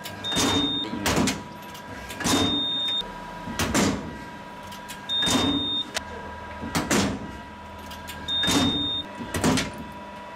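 Press brake with a round punch die punching holes in aluminium sheet, about four strokes a few seconds apart. Each stroke brings sharp knocks and a short high whine, over the machine's steady hum.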